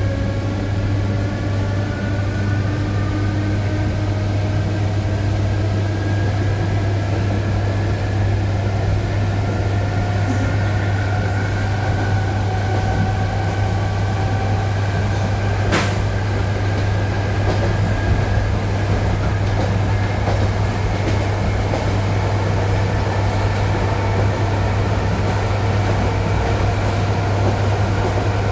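ED9E electric train accelerating, heard from inside: the traction motor whine slowly rises in pitch over a steady low hum. There is one sharp click about sixteen seconds in.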